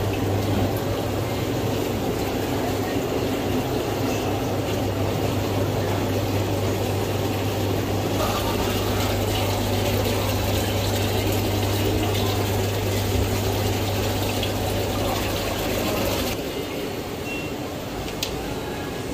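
Live-seafood tank's water pump and circulating water: a steady low hum under a constant wash of running, splashing water, which drops away sharply about sixteen seconds in.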